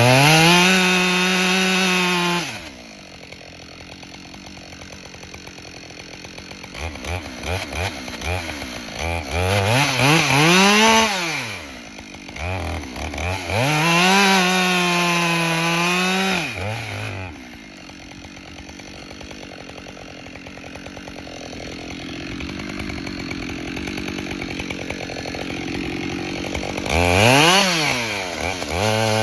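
Two-stroke chainsaw revved up to full throttle four times, each time holding a high steady pitch for a second or a few seconds, and dropping back to idle in between.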